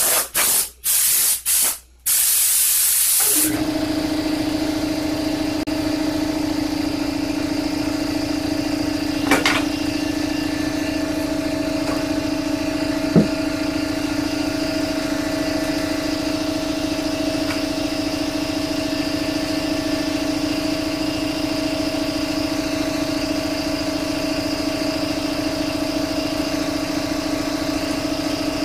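Several short blasts of hissing air, like a compressed-air blow gun used to blow off dust, then a longer blast. About three and a half seconds in, a machine starts and runs steadily with a humming tone, with a couple of faint knocks.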